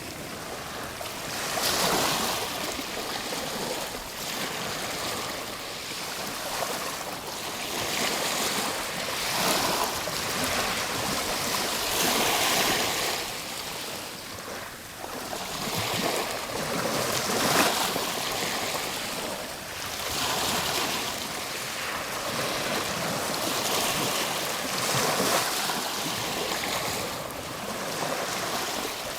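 Ocean waves breaking and washing up a shore: a continuous hiss of surf that swells and falls back every few seconds.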